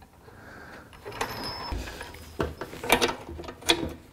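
Metal clinks and knocks of a steel lower control arm being handled and fitted into its mount on a bare front subframe. Several sharp knocks, the loudest in the second half, over a low rustle of handling.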